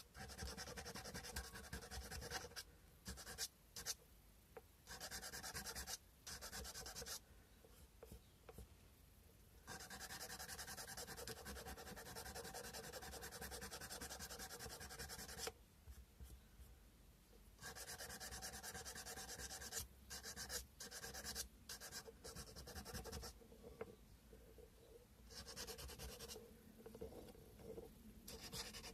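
Sandpaper rubbed by hand over a carved cow-bone fish hook, a dry scratching in runs of rapid strokes broken by short pauses.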